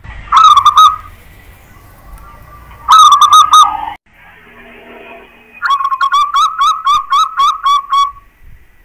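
Zebra dove (perkutut) cooing: two short phrases, then a longer phrase of about a dozen quick notes, roughly five a second.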